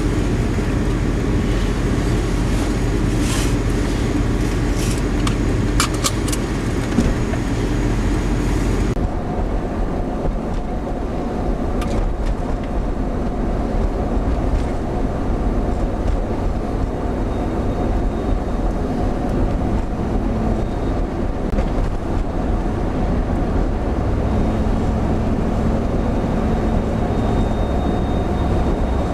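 Steady low rumble of blizzard wind and a vehicle running, with a few sharp ticks in the first several seconds. The sound changes abruptly about nine seconds in.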